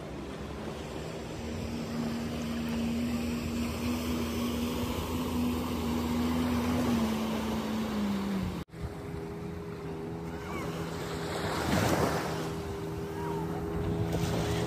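A jet ski engine running over small waves washing at the shore, holding one pitch and then dropping in pitch about seven seconds in. After a brief dropout, a jet ski towing a banana boat runs at a steady pitch, a little louder near the end.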